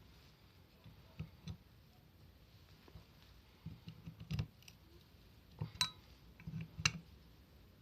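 Sporadic light clicks and knocks of small metal parts being handled. About six seconds in, one clear metallic clink rings on briefly, and a sharp tap follows about a second later.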